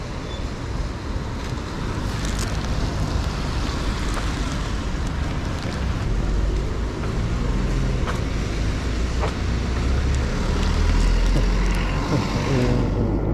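Road traffic on a wet city street: tyres hissing and engines of passing cars in a steady wash of noise, with a low rumble that grows louder from about halfway through.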